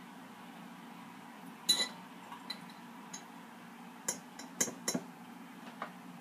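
A metal fork clinking and tapping against dishes several times while olive and jalapeño slices are forked onto the pizzas: one sharp clink about two seconds in, then a quick run of clinks around four to five seconds in, over a low steady hum.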